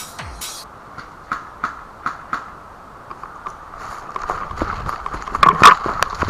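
Background electronic music in a quiet passage: a steady tone with sparse sharp clicks, building up again from about four seconds in.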